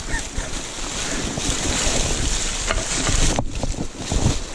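Dry leaf litter and loose flat stones scraping and crackling under a person sliding on his seat down a steep slope, with a few knocks of stones and a low rumble on the microphone.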